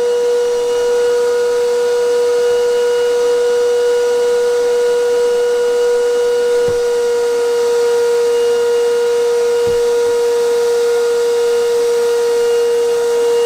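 Vacuum cleaner motor running with its hose sucking on a home-made vacuum shoe sealed against a metal plate: a steady, unchanging high whine over a rush of air, with two faint knocks partway through.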